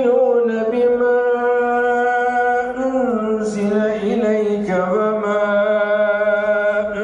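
Quran recitation by a single man's voice, chanted in long held melodic notes that shift to a new pitch a few times.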